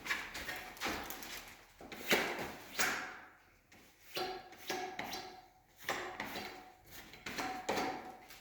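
A series of irregular knocks and clatters, some leaving a brief ring.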